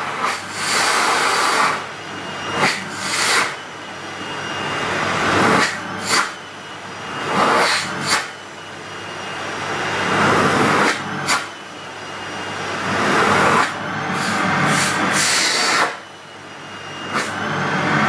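Henry vacuum cleaner running, with a hand held over and lifted from the open hose inlet on its body to test the suction. The air noise swells and falls away again and again, with several short, sharp rushes of air.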